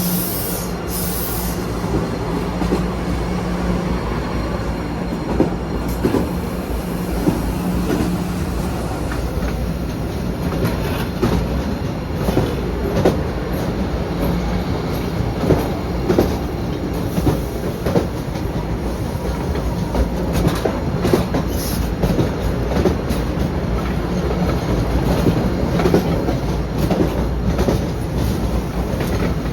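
MBTA Blue Line subway train running on the tracks, a steady rumble and hum with its wheels clicking and knocking irregularly over rail joints and switches.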